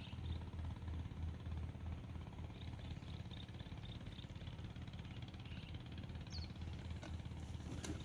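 An engine running steadily, with faint high chirps above it and a short high call about six seconds in.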